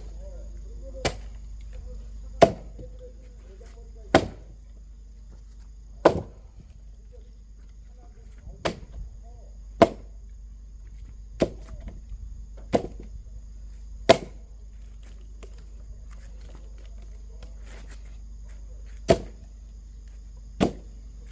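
Axe chopping at split firewood with short, light strokes to knock apart pieces still joined together: about a dozen sharp chops, a second or two apart, with a pause of several seconds in the second half.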